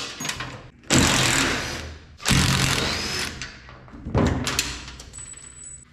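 Metal ladder rack being slid off a service truck: three loud scraping clatters, each fading over about a second, with rust and debris dropping through the truck bed's rotted-out floor.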